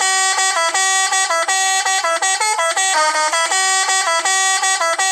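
A musical truck horn plays a quick tune of buzzy notes that step up and down every fraction of a second, several tones sounding together.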